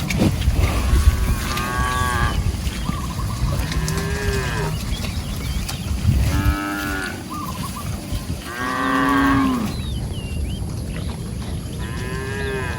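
Cattle mooing, about five calls spaced a couple of seconds apart, several of them sliding down in pitch at the end.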